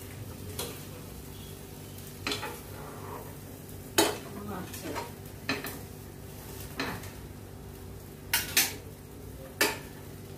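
A steel spatula and a slotted steel spoon clink and scrape against a frying pan and a steel plate while an egg omelette is turned, about nine short sharp clinks spread out, two in quick succession near the end. A steady low hum runs underneath.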